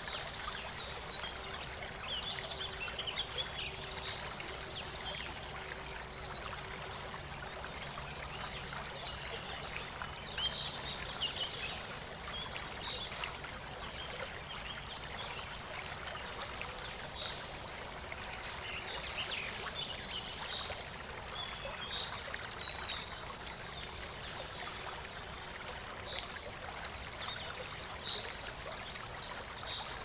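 Stream water rushing and splashing over rocks in a steady flow, with birds chirping here and there.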